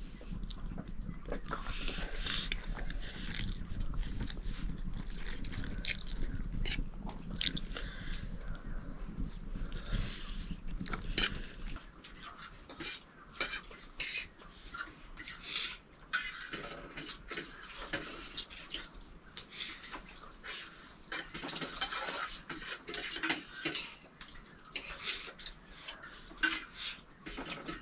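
Dishes and utensils clinking and scraping in a series of irregular light knocks and clicks, as in noodles being served or eaten. A low hum runs underneath and stops about twelve seconds in.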